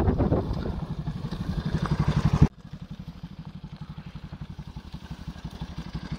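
Motorcycle engine running at low revs, a steady rhythmic putter, as the bike picks its way down a steep, narrow dirt trail. About two and a half seconds in the level drops suddenly and the putter goes on more quietly.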